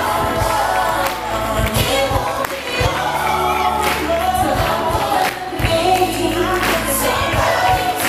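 Music with a group of voices singing together over drum hits.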